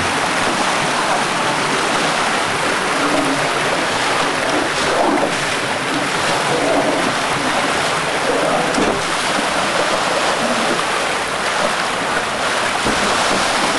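Water rushing along a steep paved street and its gutter in a steady, loud rush: stream water let out through a valve to wash the street.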